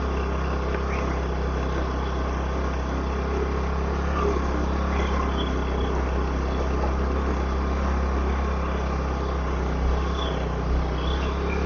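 Motorcycle engine labouring in a steady low drone as it climbs a steep hill road, over a steady rush of riding noise.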